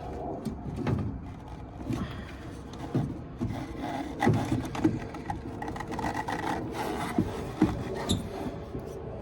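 Irregular knocks, taps and rubbing of furnace parts being handled and pushed into place by hand, with several sharper knocks in the middle.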